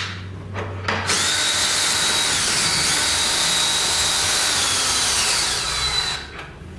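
Cordless drill with a socket extension spinning the scissor lift's screw drive, running the press's lower pressure plate up towards the top plate: a steady, high motor whine whose pitch sinks a little as the press takes up load near the end, then cuts off about six seconds in.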